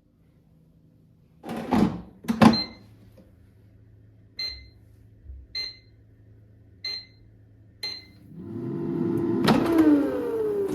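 Kitchen appliance sounds: two knocks, then four short electronic keypad beeps about a second apart, then a motor whirring up with its pitch sliding down near the end.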